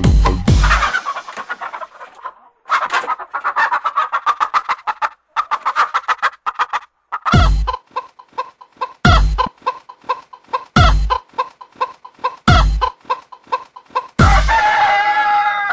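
Electronic background music. A fast, stuttering high pulse is joined about 7 seconds in by deep drum hits roughly every second and a half, and a sliding synth melody comes in near the end.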